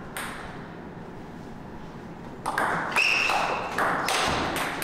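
Table tennis rally: sharp clicks of the ball striking the rackets and the table, a single click near the start, then a quick run of them in the last two seconds. A short squeak sounds about three seconds in.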